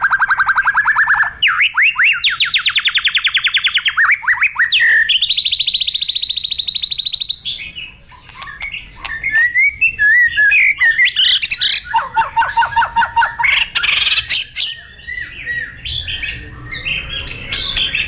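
Caged Copsychus songbird (the magpie-robin and shama group) singing a long, loud, varied song. It runs through fast trills of rapidly repeated notes, each trill at its own pitch, some low and some high. A brief lull comes about eight seconds in, then a run of quick whistles, chips and further trills.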